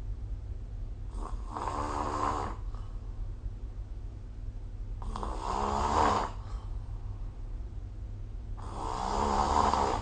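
A person snoring in sleep: three snores about every three and a half seconds, each swelling and then cutting off sharply. A steady low hum runs underneath.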